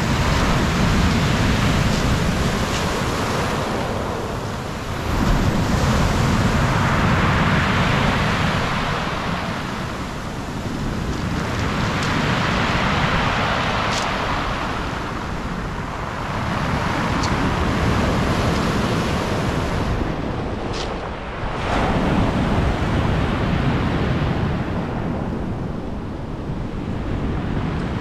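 Black Sea waves breaking on the shore, each surge swelling and washing back every few seconds. Wind rumbles on the microphone underneath.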